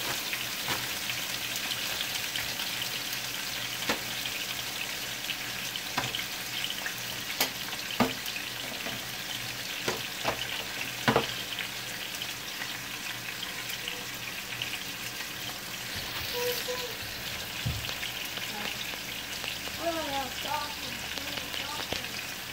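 Steak sizzling steadily in a frying pan, with a few sharp clicks of metal tongs.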